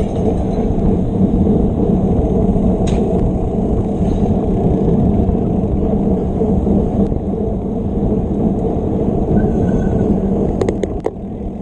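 Steady low rumble of wind and tyre noise on a mountain bike's action camera while riding at race pace, with a few sharp rattles near the end.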